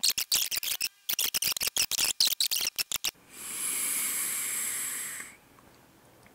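A fast, irregular run of sharp clicks for about three seconds, then a steady hiss of about two seconds as a freshly dripped rebuildable dripping atomizer is fired and drawn on.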